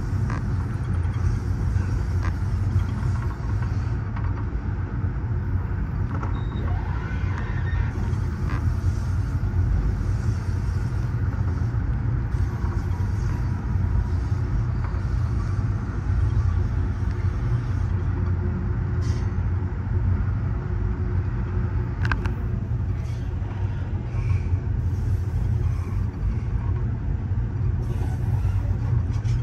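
Steady low rumble of a moving Amtrak Superliner passenger car rolling over the rails, heard from inside the rear coach, with a few faint clicks.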